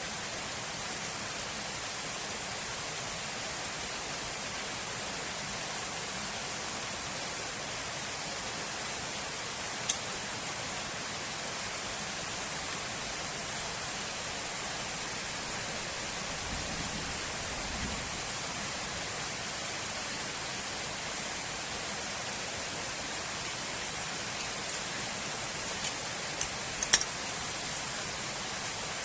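Steady, even hiss with no engine tone in it, with a sharp click about ten seconds in and a few clicks near the end.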